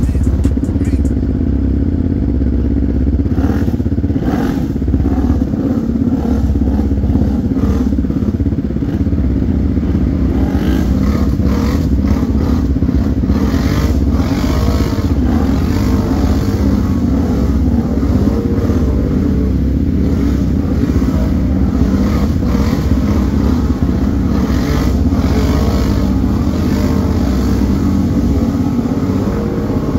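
Can-Am Outlander 570 ATV's V-twin engine revving up and down as it churns through deep mud and water, with mud splashing and clattering over it.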